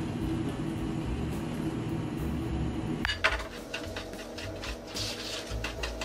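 Microwave oven running with a steady hum while it melts butter, cutting off abruptly about three seconds in, followed by a run of clicks and light clatter.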